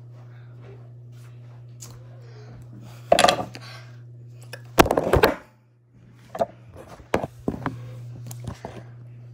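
A phone being picked up and handled: two loud rustling, scraping bursts about three and five seconds in, then a run of knocks and taps, over a steady low hum.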